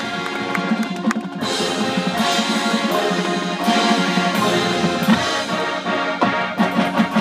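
High school marching band playing: brass ensemble over a drum line, swelling fuller and louder about a second and a half in.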